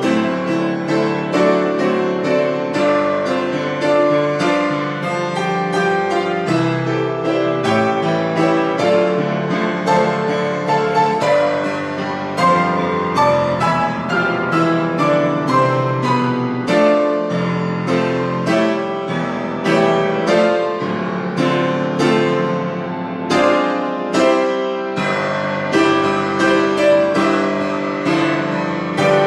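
Solo grand piano playing a hymn arrangement: full chords and running notes struck continuously, with the sustained notes ringing under them.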